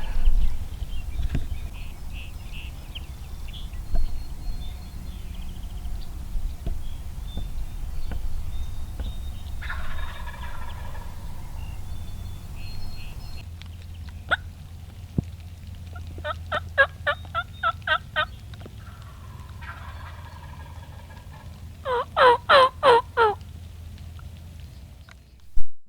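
Wild turkey toms gobbling from the roost, a rattling gobble every several seconds, with two short runs of evenly spaced yelps near the end, the second much louder and closer.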